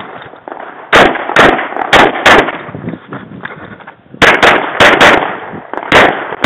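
Glock 24 .40 S&W pistol fired rapidly in a match stage. There are two quick pairs of shots about half a second apart, then a faster string of four, then more single shots, each crack followed by a short echo.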